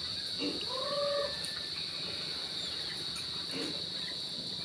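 Chickens clucking: a few short clucks and one drawn-out call that rises and falls about a second in, over a steady high-pitched hiss.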